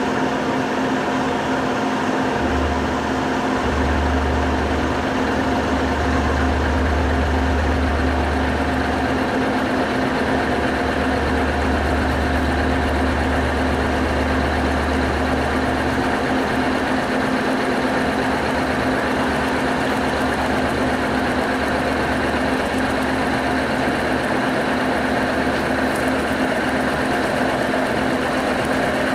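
Milling machine spindle running with an end mill cutting into an aluminium block, a steady machining whir. A deeper hum joins about two seconds in and fades out past the middle.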